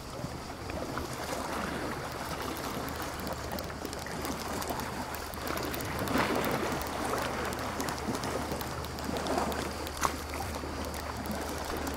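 Small sea waves washing in on the shore, swelling about six and again about nine seconds in, over a steady low hum. One sharp click near the end.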